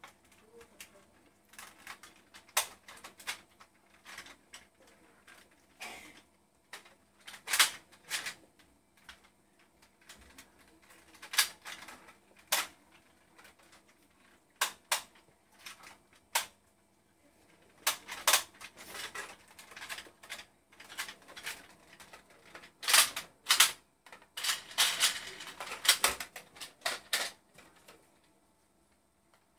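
Nerf blasters firing and foam darts striking: an irregular series of sharp clicks and snaps. Some come singly and some in quick bursts, and they bunch up thickly a few seconds before the end.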